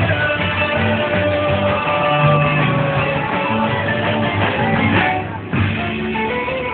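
Rock-and-roll music with singing and guitar, with a brief drop in loudness about five and a half seconds in.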